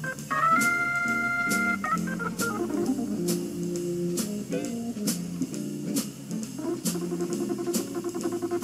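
Background music with a steady drum beat and long held notes.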